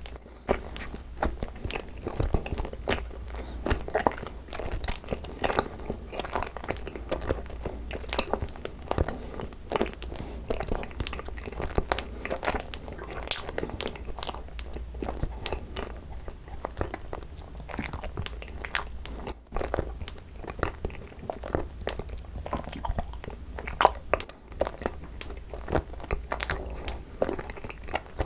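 Close-miked chewing of cream-cheese-filled rice cake: continuous wet smacking and squishing with many small crunchy clicks, some louder than others.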